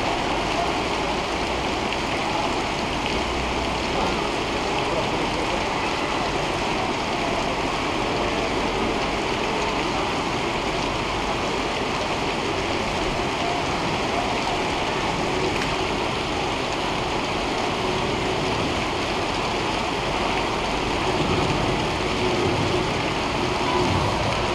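Steady rushing of floodwater running down a flooded city street.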